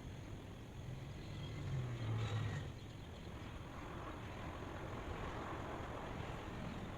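Steady hiss of outdoor background noise, with a low hum that swells about two seconds in and fades away a second later.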